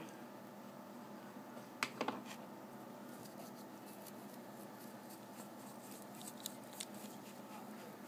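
Faint rubbing of a microfiber cloth working polish paste over a brass belt buckle, with a few light clicks and taps, over a steady low room hum.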